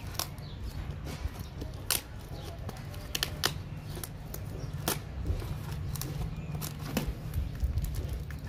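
A knife cutting through plastic wrap and packing tape on a cardboard box: scattered sharp clicks and crackles of the tape and plastic film, over a steady low rumble.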